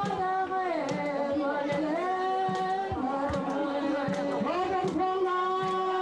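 Several voices singing a slow chant in long held notes that slide down between phrases, over a drum struck about once every second.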